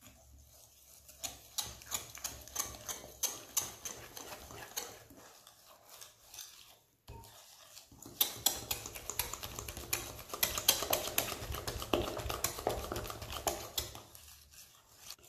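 Wire whisk beating thick crêpe batter in a glass bowl: rapid, rhythmic clicks of the wires against the glass. The whisking pauses briefly about seven seconds in, then resumes louder.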